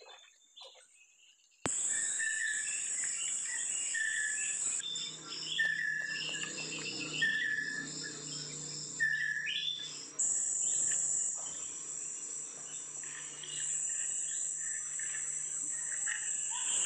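A steady, high-pitched forest insect chorus that starts suddenly about two seconds in, with a bird calling in short repeated notes over it.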